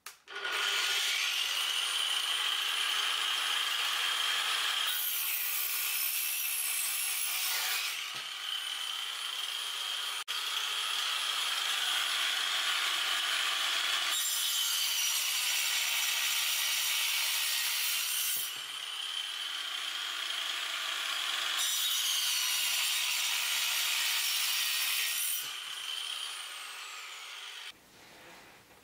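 Angle grinder fitted with a toothed circular-saw blade, running at speed and cutting through a wooden board. A steady high whine with the rasp of the teeth in the wood grows harsher over several stretches. The sound drops away and stops shortly before the end.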